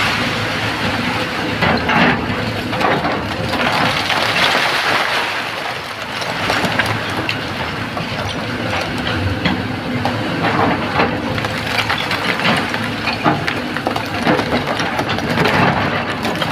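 Excavator working in a quarry: diesel engine running under load with the grinding crunch and scattered cracks of rock and earth being scraped and moved.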